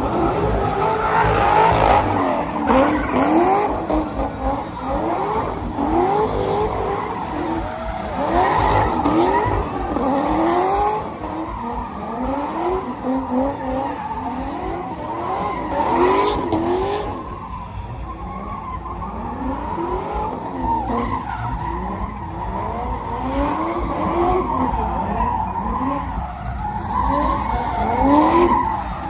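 Car doing a burnout at full throttle, tyres screeching, while its engine revs up and falls back about once a second over and over.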